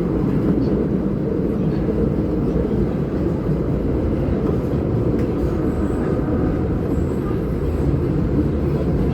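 Osaka Metro Tanimachi Line subway train running, a steady low rumble.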